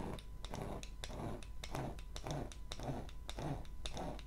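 A small red hand tool rubbed back and forth over a diamond painting canvas, scraping at the canvas's double-sided adhesive, in regular strokes about two a second.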